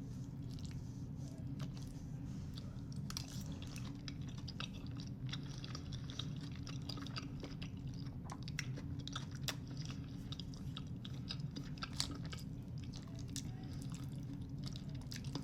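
A person chewing a mouthful of soft food close to the microphone: wet smacks and small crunches, under a steady low hum. The food is a Chipotle meal of chicken, pinto beans, cheese, sour cream and lettuce.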